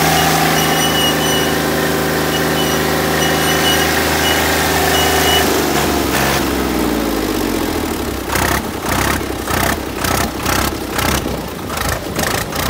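Tractor diesel engine pulling hard under heavy load, running steadily at first; about five seconds in its pitch drops and wavers as it lugs down. In the second half it bogs into uneven chugging pulses, about two to three a second.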